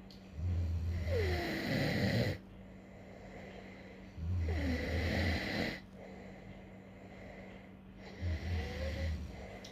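A sleeping person snoring: three snores about four seconds apart, each a low rattle lasting one to two seconds.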